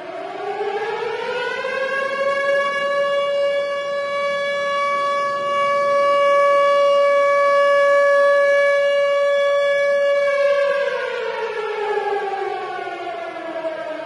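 Tornado warning siren winding up to a steady wail over the first couple of seconds, holding that one pitch for about eight seconds, then winding back down near the end.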